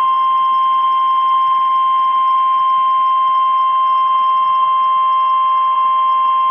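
Single steady alert tone of about 1050 Hz, the NOAA Weather Radio warning alarm tone, held unbroken at full loudness. It signals that a warning broadcast is about to follow, here a flood warning.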